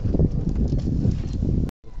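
Choppy water slapping against the hull of a small outrigger boat: a dense low rumble with irregular knocks, cutting off suddenly near the end.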